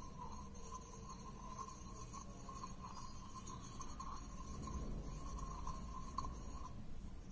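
Faint, soft rubbing and scraping as moringa leaf juice and slaked lime are stirred together into a paste in a small bowl.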